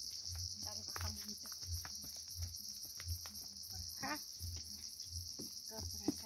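Steady high-pitched insect chorus, with regular low footstep thuds, about one every 0.7 s, from walking on a dirt path, and faint voices now and then.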